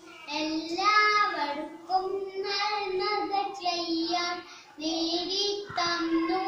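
A young boy singing solo without accompaniment, in short phrases of held notes with brief breaths between them.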